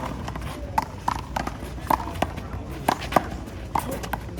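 Handball rally: the rubber ball being slapped by players' hands and smacking off the wall. It makes sharp cracks at an uneven pace, about two a second.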